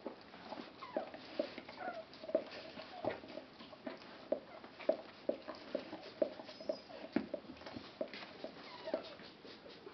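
Newborn Chodský pes puppy squeaking and whimpering, short thin cries repeated two or three times a second, with faint clicks and rustling on the bedding.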